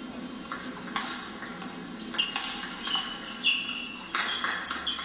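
Table tennis rally: the celluloid ball clicks off the bats and table again and again, while the players' shoes squeak in short, high-pitched chirps on the sports-hall floor.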